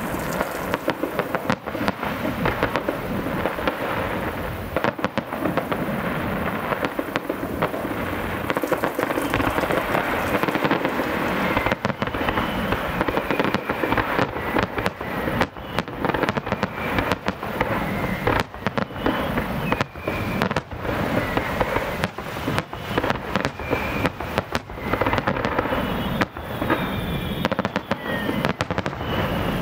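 Fireworks display: aerial shells bursting in rapid, continuous salvos of bangs and crackling. From about halfway through, short high whistles are heard among the bursts.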